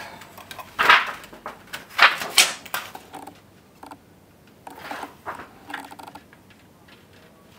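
Thin metal solder-paste stencil being lifted, flexed and slid over a mat by hand while it is lined up on a small circuit board: three short rustling, scraping bursts, the first two loudest.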